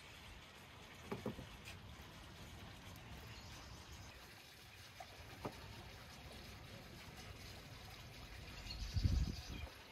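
Faint wet squishing of raw lamb stomach being handled as pieces of bell pepper are pushed into it, with a few soft handling sounds and a louder low thud about nine seconds in.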